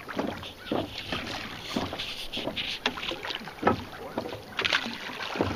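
Water lapping and slapping against the hull of a fishing boat in irregular knocks and splashes, a few each second.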